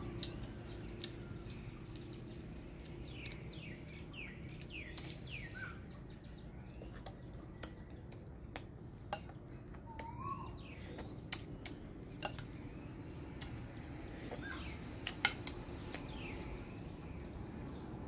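Scattered small clicks and clinks of eating: a spoon against a bowl and boiled eggs being handled and peeled, with a sharper double click about fifteen seconds in. Birds chirp briefly now and then in the background.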